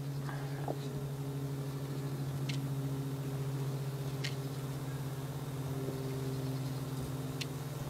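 A steady low hum made of a few held tones, with three faint, very short high ticks spread through it.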